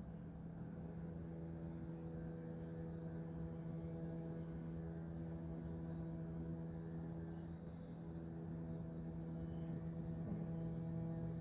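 A steady low hum with several even overtones, from an unseen source, under faint scattered bird chirps.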